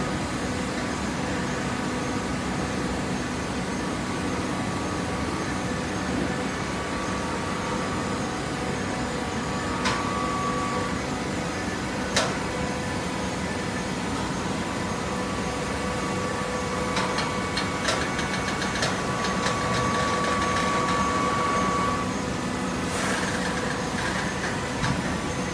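Cardboard shredder and automatic baler running: a steady machine hum with a few sharp knocks and, past the middle, a higher tone held for several seconds.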